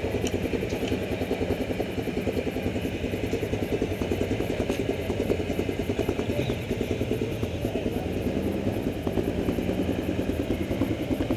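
Quad bike engines idling and running at low speed, with a steady rapid pulsing exhaust beat.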